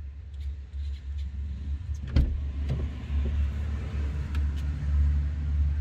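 A sharp knock about two seconds in and a few fainter clicks as someone handles things in a small car's interior while searching it, over a steady low hum.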